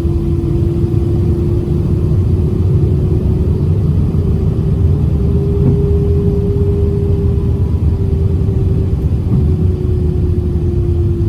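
Airbus A319's jet engines running at low power, heard from inside the passenger cabin: a steady low rumble under a humming tone that rises slightly about halfway through and then settles back.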